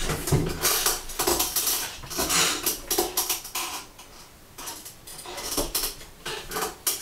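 Irregular knocks and scrapes of a board of freshly thrown clay bowls being handled and shifted into place over a potter's wheel. The sounds come in short clusters, several a second at times, with a quieter stretch in the middle.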